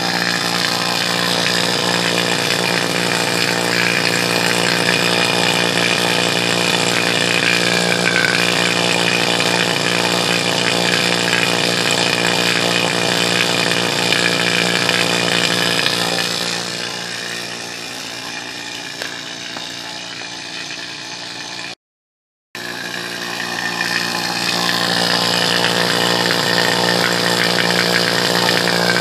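HVAC rotary vacuum pump running steadily with an even motor hum while it evacuates the refrigerant lines, the micron gauge falling below 200 microns toward a deep vacuum. Past the middle it drops quieter for several seconds and cuts out for a moment, then returns at full level.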